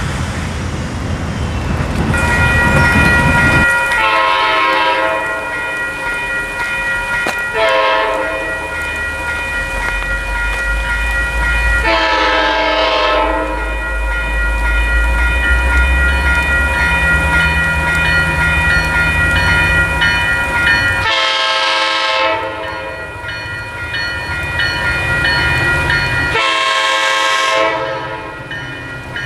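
Train horn sounding five separate blasts of one to two seconds each, over a steady high ringing tone and the low rumble of a passing train.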